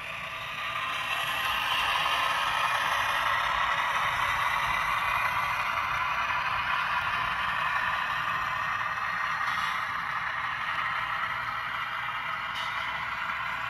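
Model freight train rolling along the track behind a model ES44 diesel locomotive: a steady rattling hiss of wheels on rails and the running gear, growing louder about a second in and slowly easing off.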